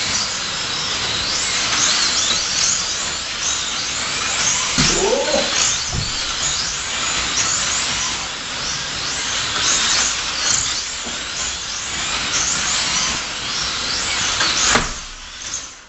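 1/24-scale slot cars' small electric motors whining, several at once, each rising and falling in pitch as the cars speed up on the straights and slow into the curves. A sharp knock comes near the end.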